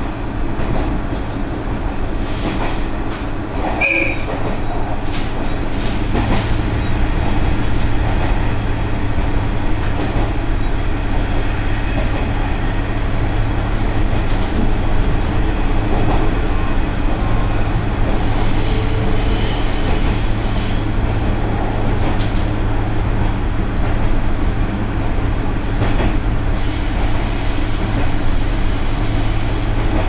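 Iiyama Line diesel railcar running, heard from inside the passenger cabin: a steady rumble of the wheels on the rails with the engine's low hum under it. High-pitched wheel squeal rises several times, the longest stretch near the end.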